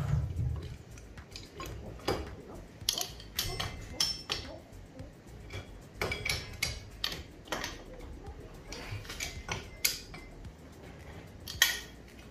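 Steel spanner and adjustable wrench clinking and scraping against the hydraulic cylinder's threaded rod-end fitting and nut as it is tightened: a string of short, sharp metallic clinks, the loudest one near the end.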